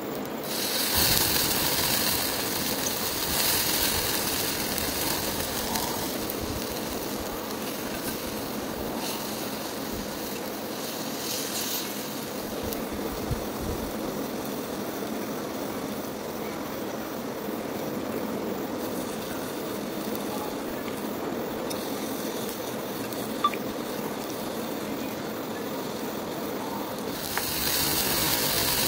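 Bottle gourd slices sizzling on a hot stone slab over a wood fire, a steady hiss with a single sharp crackle past the middle. Near the end it swells as poured liquor catches and flares up in a flambé.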